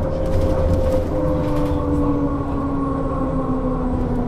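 Electric traction drive of a 2001 Berkhof Premier AT 18 articulated trolleybus running, its whine falling slowly in pitch over a steady low rumble.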